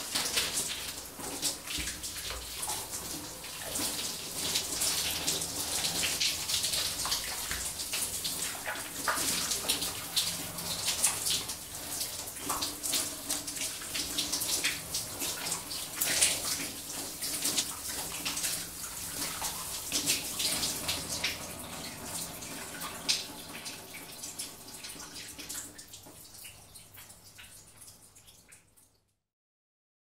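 Shower running: water spraying and splashing unevenly, with many small irregular splashes. It fades out over the last few seconds.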